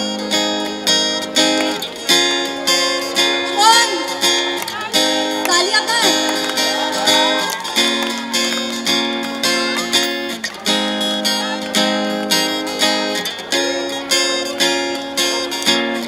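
Acoustic guitar strummed in a steady rhythm, changing chords every few seconds.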